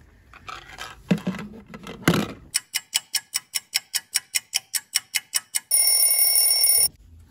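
Plastic clacks of a toy oven door being shut, then a kitchen timer ticking about six times a second for some three seconds and ending in a steady ring of about a second, the timer's signal that the food is done.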